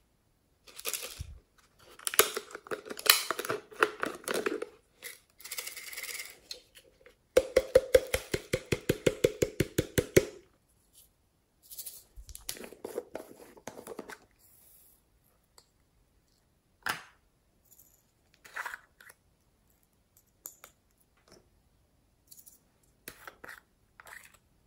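Plastic slime containers being handled and opened: lids clicking and rattling, with a regular run of quick clicks, about eight a second, for some three seconds in the middle, then a few single clicks.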